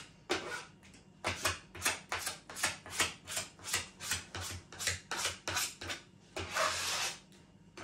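A spatula scraping back and forth over a wooden panel, spreading contact adhesive in quick, even strokes, about three a second, with one longer stroke near the end.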